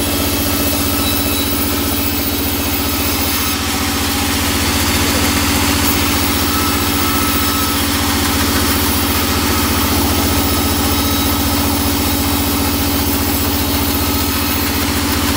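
Sawmill band saw running steadily with a constant hum, its blade working through a teak slab.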